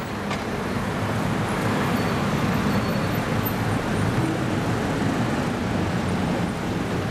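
Steady city street traffic: several car engines running at low speed with tyre and road noise, and no distinct revving.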